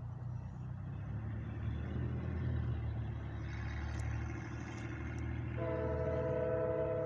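Approaching CSX freight train's diesel locomotives rumbling in the distance, slowly growing louder. About five and a half seconds in, the locomotive horn starts a long, steady chord, which is the loudest sound.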